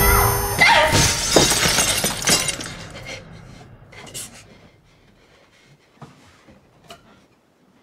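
A drinking glass shattering: a crash with several sharp breaking impacts over about two seconds, fading away, then a few small pieces clinking as they settle.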